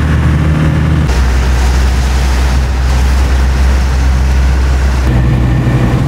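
Land Rover Defender's engine and road noise heard from inside the cab while driving, a loud steady low drone. The drone's pitch changes abruptly about a second in and again about five seconds in.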